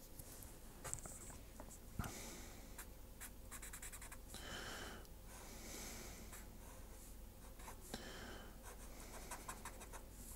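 Fineliner pen drawing on paper: a run of short, faint scratchy strokes with a sharper tick about two seconds in.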